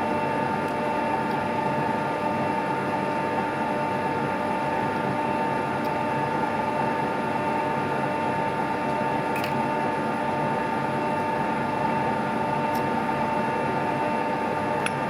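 Metal-working lathe running steadily, its gear train giving a constant whine with a few faint ticks over it.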